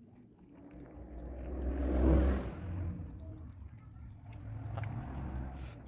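A road vehicle passing by: a rumbling rush that swells to a loud peak about two seconds in and fades away, followed by a smaller swell near the end.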